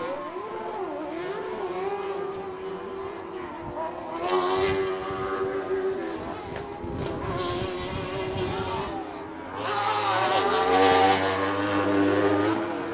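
Several off-road race vehicles' engines revving up and down over one another as they race. The engines grow louder about four seconds in, and again for most of the last three seconds.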